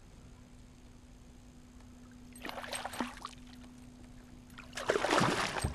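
Water splashing twice as a hooked fish thrashes at the surface beside the kayak during the fight, the second splash longer and louder. A faint steady hum runs underneath.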